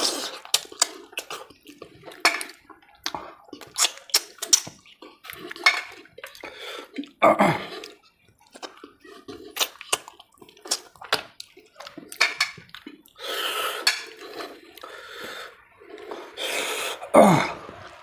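Close-up wet chewing and lip smacking of a person eating mutton rib curry by hand, with a few longer wet slurps of sucking meat off the bone about seven seconds in, near the two-thirds mark, and near the end.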